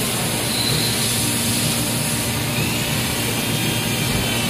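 Steady drone of running factory machinery, a constant whirring noise with a low hum under it, unchanging throughout.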